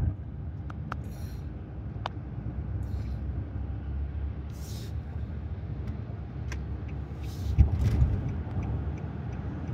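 Road noise inside a car moving at highway speed: a steady low rumble, with a few small clicks and a louder bump about three-quarters of the way through.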